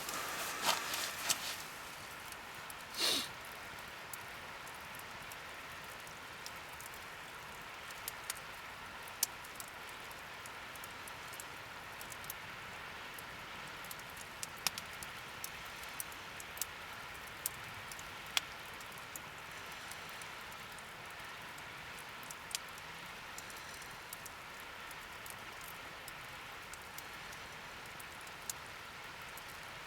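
Wood fire burning in a fire pit, with a steady faint hiss and scattered sharp crackles and pops. Some rustling in the first second or so, and a brief louder rush about three seconds in.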